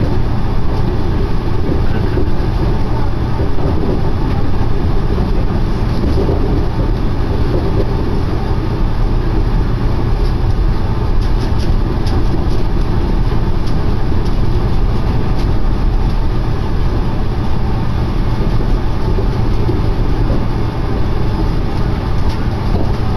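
Chiba Urban Monorail car in motion, heard from inside the cabin: a steady, loud rumble and rush from the suspended monorail's rubber-tyred running gear, with a few light clicks about halfway through.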